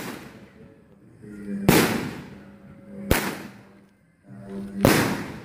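Nine-shot consumer fireworks cake firing three shots about a second and a half apart. Each is a sharp bang with a short fading tail, with a short rising hiss before it.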